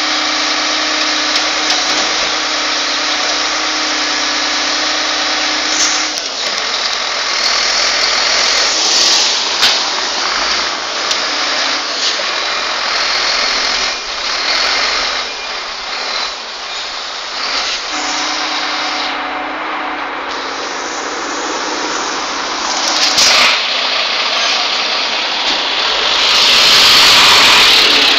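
Heavy lorry's diesel engine running steadily with a hum that drops out for a while mid-way, then the lorry drives past close by near the end, loudest as it passes.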